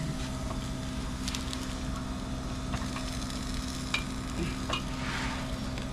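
Crocodile meat skewers and prawns sizzling on a charcoal grill, a steady sizzle with faint scattered crackles and a steady low hum underneath.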